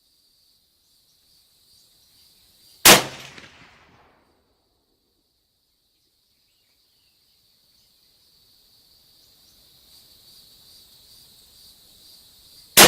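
Two rifle shots from a Chinese SKS firing 7.62×39 steel-cased rounds, about ten seconds apart, one about three seconds in and one at the very end, each with a trailing echo of about a second. A steady faint high hiss runs underneath.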